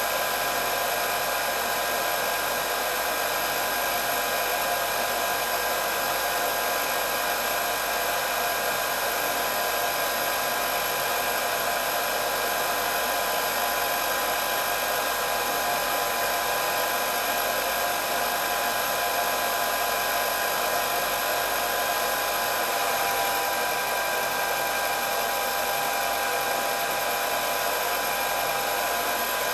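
Hair dryer running steadily: a rush of blown air with a constant high motor whine of several steady tones and little low end.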